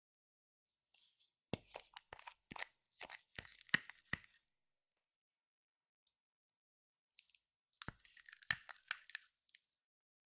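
Clear slime being mixed, giving two bursts of sticky crackling clicks separated by a few seconds of quiet.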